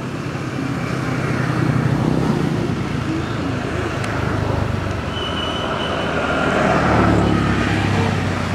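Motor traffic passing: a low engine rumble that swells about two seconds in and again near the end.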